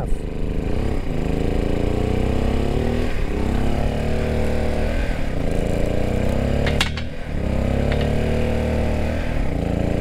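A small engine running steadily throughout, its pitch wavering slightly. About seven seconds in comes a single sharp snap as bolt cutters shear through a small cast gold bar.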